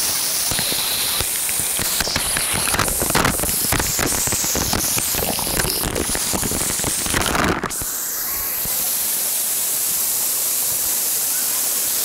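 Waterfall pouring down with a steady rush, water landing right on the microphone. For several seconds in the middle, heavy irregular splattering of water striking the microphone. It cuts off suddenly about two-thirds of the way through, leaving the smooth rush of falling water.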